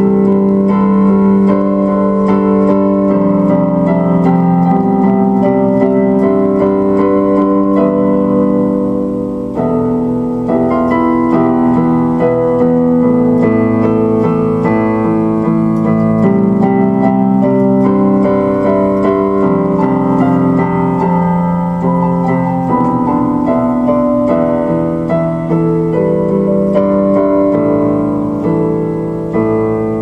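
Solo keyboard music, piano or electric piano, playing slow held chords; it starts fading out near the end.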